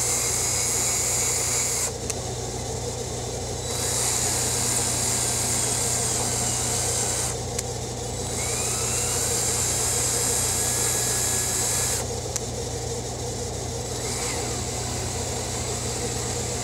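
Hardinge HLV-BK lathe turning a spindle while a drill mounted at the toolpost works its surface for a fine finish. A loud hiss comes and goes in three spells of a few seconds over a steady low hum. A faint whine slides up in pitch about nine seconds in.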